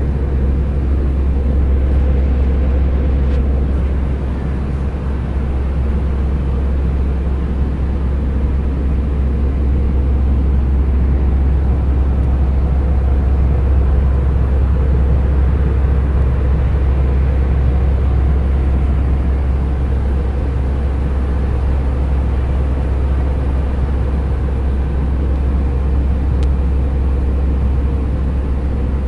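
Airliner cabin noise in flight: a steady, loud low rumble that holds unchanged throughout.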